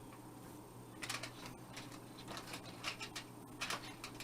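Faint, irregular clicks and light taps of small parts and wires being handled, over a steady low hum.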